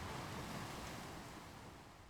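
Ocean surf washing onto a beach, one wave's rush slowly dying away.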